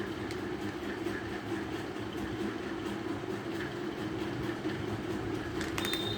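Steady vehicle rumble with faint clicks. Near the end a high, steady tone starts along with a few sharp clicks.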